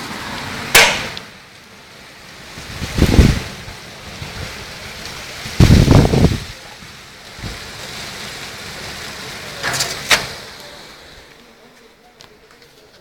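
Thunderstorm: steady rain and wind noise broken by loud gusts or rumbles, heaviest about three and six seconds in, with sharper bursts around one and ten seconds in; it dies down near the end.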